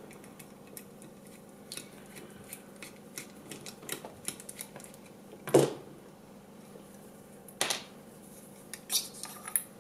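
Small screwdriver working a screw out of an AKG C1000 microphone's metal body: faint ticks and scrapes of metal on metal, then a few sharper clicks as the screwdriver is set down and the metal body is handled.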